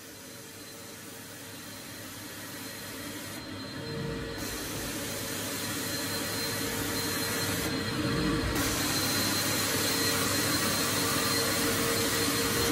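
Carpet extraction machine: vacuum motors running with the hiss of the wand spraying hot water onto the carpet and sucking it back up, growing steadily louder.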